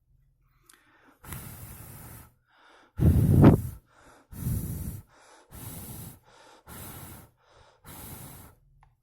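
Six or so loud breaths of air close to the microphone, each under a second and coming roughly a second apart. The strongest is about three seconds in.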